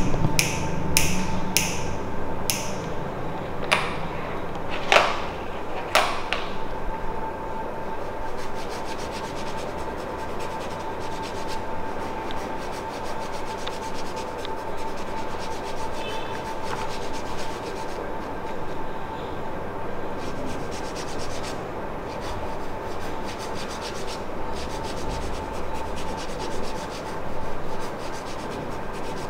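Massage hands rubbing steadily over the body, a continuous scratchy swishing. In the first six seconds a handful of sharp snaps stand out above it. A faint steady hum runs underneath.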